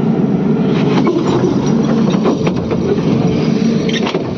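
Excavator's diesel engine running steadily while its bucket and linkage give a few sharp metallic clanks and knocks as it loads a trailer.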